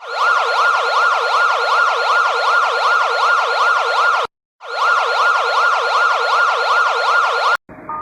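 Electronic siren yelping, its pitch sweeping rapidly up and down about three times a second, in two bursts with a brief break about four seconds in.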